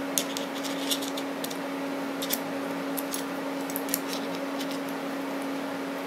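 Scattered small clicks and taps from a small aluminium camera quick-release clamp and its base plate being handled and fitted back together by hand, over a steady low background hum.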